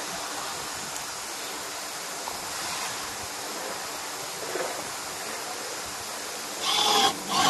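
Steady background hiss, then near the end a cordless electric screwdriver runs in two short bursts, driving a mounting screw into the receiver.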